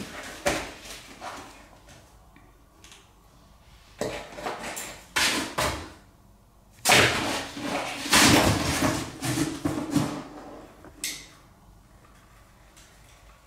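Cardboard box rustling, scraping and knocking as a cat rolls about inside it and pushes its paws against the top and sides, in irregular bursts.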